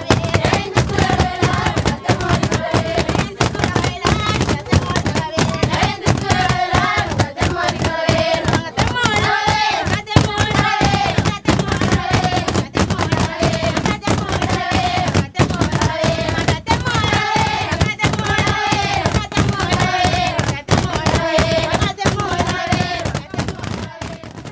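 Rapid rhythmic percussion, many beats a second, with voices singing a repeating tune over it; it fades out near the end.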